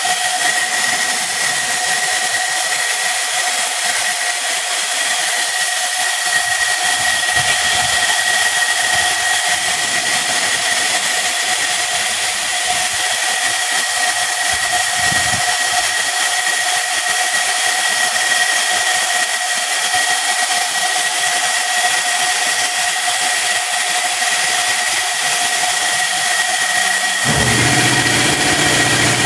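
Loud, steady whistling hiss of compressed shop air fed into the Cummins cylinder through the injector bore to hold the valves up while the springs are changed, with air escaping as it goes. Near the end a lower, steady motor hum comes in under it.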